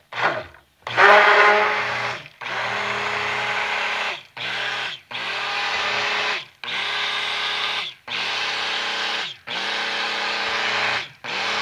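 Stick blender run in repeated pulses, its motor humming steadily for one to two seconds at a time with short gaps between, as it blends lye solution into melted lard toward trace.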